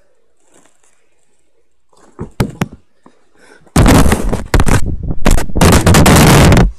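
Two sharp knocks, then about three seconds of very loud, distorted rumbling noise that stops suddenly: the camera's own microphone being handled and covered.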